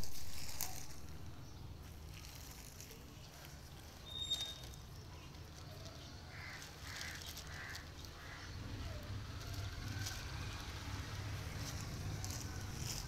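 A thin plastic carrier bag rustling and crinkling in soft scattered ticks as kittens paw and bite at it, over a steady low outdoor rumble. About six seconds in come four short, evenly spaced distant calls.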